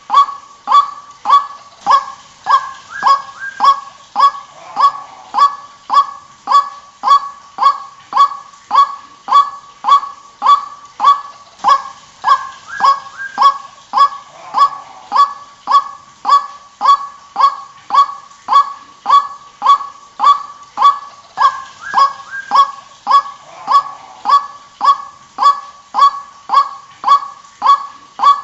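White-breasted waterhen calling: the same short 'kwak' note repeated steadily, nearly two a second, with no pause.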